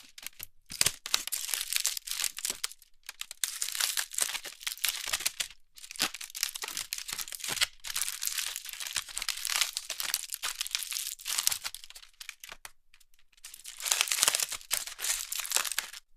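Nuts and bolts shaken inside a small bag: the bag crinkles while the metal pieces click against each other. It comes in several bursts with brief pauses and a longer gap near the end.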